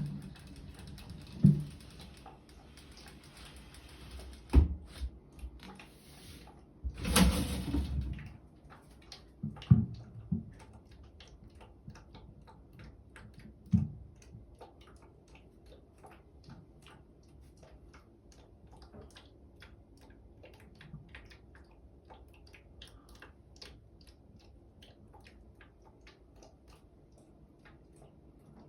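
Unexplained knocks and thumps, with a louder clattering rush about seven seconds in, followed by a long run of faint irregular ticking clicks.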